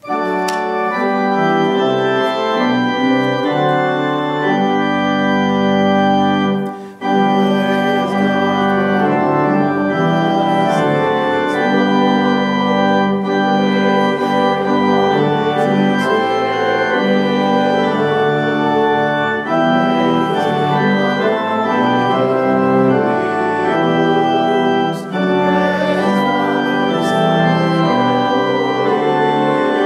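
Organ playing slow, sustained chords that change every second or so, with a short break about seven seconds in.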